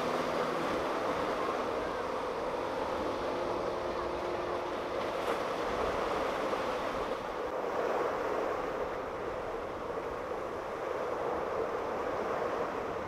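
Steady rush of wind and choppy water, with the hum of a skiff's outboard motor running at speed fading out over the first few seconds as it moves away.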